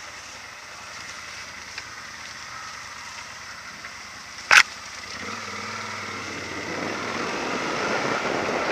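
Yamaha Super Ténéré XT1200Z motorcycle running at low revs while rolling down a rocky dirt trail. There is a single sharp knock about halfway through. The engine and riding noise grow louder over the last few seconds.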